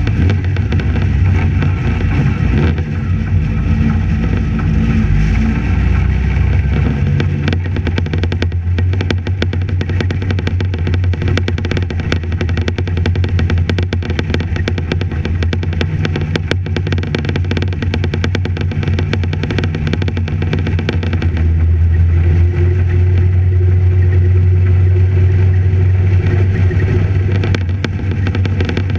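Racing sidecar outfit's engine running at low revs, heard from a camera on its fairing; the revs vary over the first seven seconds or so, then it runs steadily.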